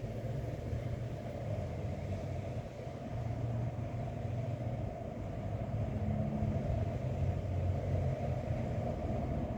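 Wind gusting over the microphone: a steady low rumble that swells slightly, with little above it.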